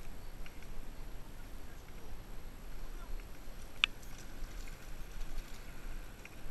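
Mountain bike rolling down a dirt trail: a steady low rumble with faint ticks and one sharp click about four seconds in, followed by a faint thin steady tone.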